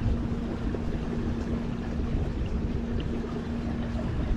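Kayak moving along on the water: a steady low hum over a haze of wind and water noise.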